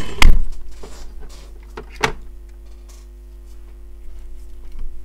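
Handling noise as an iPhone logic board is moved and set down on the bench: a loud knock just after the start and a sharper click about two seconds in, over a faint steady hum.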